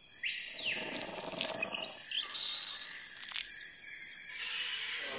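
Jungle ambience sound effect: bird calls and short high chirps over a steady high hiss, with a few sharp clicks.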